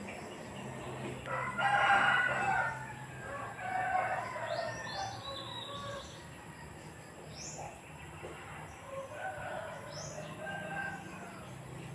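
A rooster crowing in the background, loudest about two seconds in, with weaker calls later and a few short high chirps.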